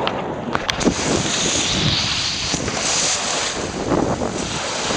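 Small seaside waves washing in over a pebble beach in a steady hiss of foam and surf, with wind buffeting the microphone.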